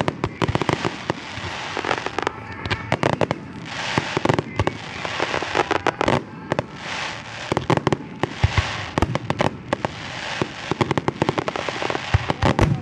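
Aerial fireworks display: rapid volleys of sharp bangs and crackling bursts, with stretches of hissing between the volleys.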